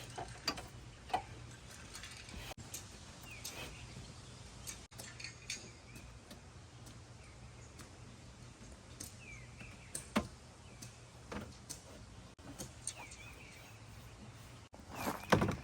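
Sparse clicks and small rattles of hands working on a car door's window and regulator parts, over a steady low hum.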